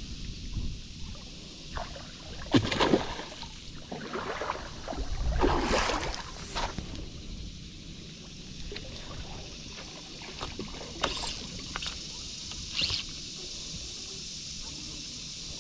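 Knocks and bumps on a kayak hull with water sloshing against it. The loudest come about three seconds in and again around six seconds, with a few smaller clicks later.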